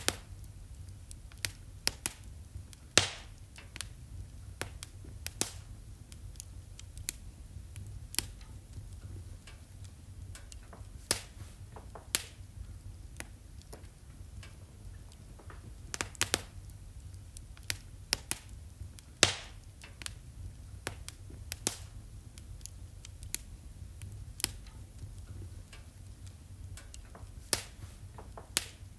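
Fire crackling in a fireplace: irregular sharp pops and snaps, a few louder ones standing out, over a low steady rumble.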